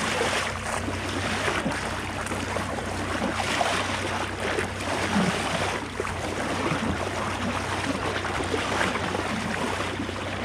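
Boat motor running steadily with a low hum while water splashes and rushes against the hull.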